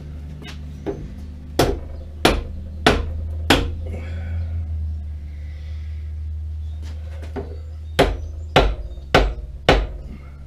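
Hammer blows on a metal part of a lathe: two runs of four sharp strikes, about two a second, with a few lighter taps between, over a steady low hum.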